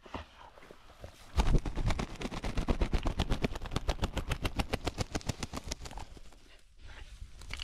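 Hunting dog panting hard at close range, a fast even rhythm of breaths, after a bump about a second and a half in.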